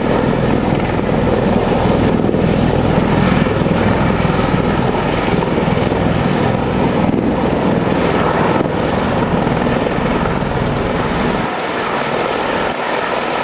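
MV-22 Osprey tiltrotor hovering low in helicopter mode, its two large proprotors and Rolls-Royce AE 1107C turboshaft engines running loud and steady. The deepest part of the sound eases off somewhat near the end.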